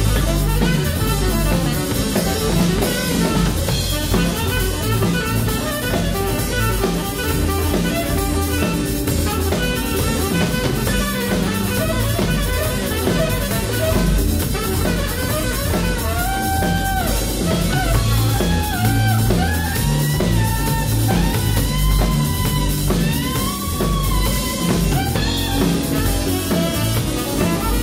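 Live band playing an instrumental groove: drum kit, electric bass and electric guitar keep a steady beat. About halfway through, a single melodic lead line enters above them, sliding up and down.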